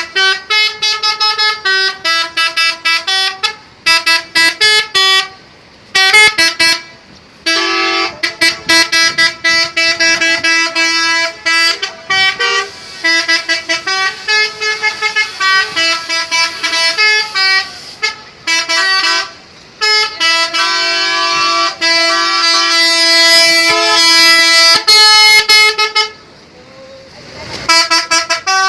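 A PO Haryanto bus's 'telolet' horn, a set of multi-tone horns, playing melodies: quick runs of short toots on changing pitches, broken by a few short gaps, with a long held chord of several notes in the last third.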